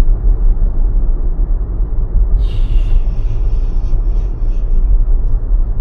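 Steady low road and tyre rumble heard from inside a Tesla electric car driving at speed, with a brief hiss about two and a half seconds in that fades over the next two seconds.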